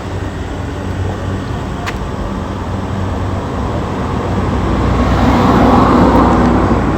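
GMC Denali V8 engine running with a misfire on cylinder 5, whose ignition coil wire has come off. It gets louder about five seconds in.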